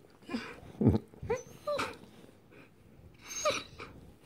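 Entlebucher mountain dog "talking": a string of about five short, drawn-out vocal sounds whose pitch slides up and down, the last one about three and a half seconds in.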